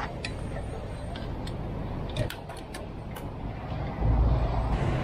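Steady low motor-vehicle rumble with a few light clicks. About four seconds in, a louder, steady engine rumble comes in.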